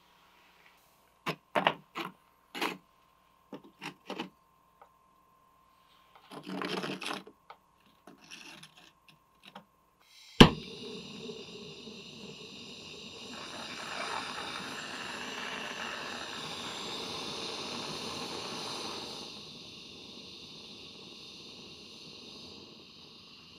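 A few light clicks and knocks of metal tools and tweezers being handled, then, about ten seconds in, a sharp click as a jeweller's gas torch lights and the steady hiss of its flame heating the silver joint for brazing. The hiss grows louder for several seconds and eases off near the end.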